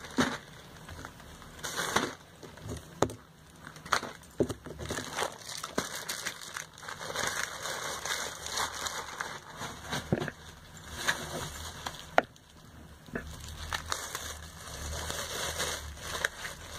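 Clear plastic bags crinkling and rustling, with scattered sharp clicks and small knocks, as packaged products are handled.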